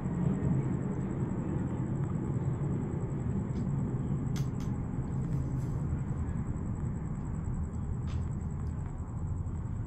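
Thunderstorm noise: a steady low rumble with a hiss above it, and a few sharp clicks about halfway through and near the end.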